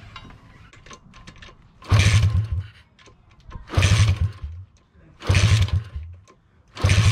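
A pit bike's single-cylinder four-stroke engine kicked over four times on the kickstarter, about a second and a half apart, turning over without firing because a compression gauge sits in the spark plug hole during a compression test.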